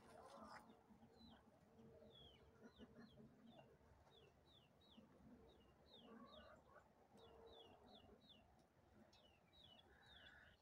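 Faint clucking of chickens, with quick high chirps repeating in small groups throughout.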